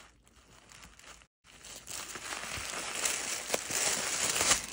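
Tissue paper crinkling and rustling as it is pulled out of a fabric cosmetic bag. It is faint at first and grows louder and busier from about a second and a half in.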